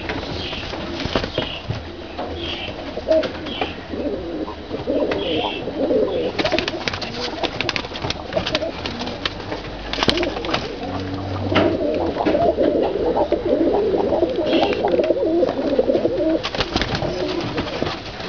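Uzbek pigeons cooing in a low, wavering murmur that swells in the second half. Scattered sharp clicks and knocks fall through the middle and again near the end.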